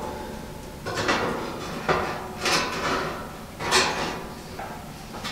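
Sheet-steel 1933–34 Ford truck grille shell being shifted and set against a plywood workbench: about five short scrapes and clanks of metal.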